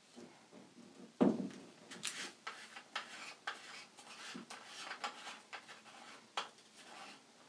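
Handling noise as a screw-on UV filter is taken off a camera lens: a sharp knock about a second in, then irregular small clicks and scrapes.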